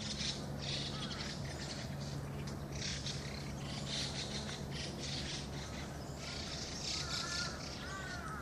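Birds in the trees: high chirping throughout, and a crow cawing several times near the end. Under them runs a low steady hum that fades out about six seconds in.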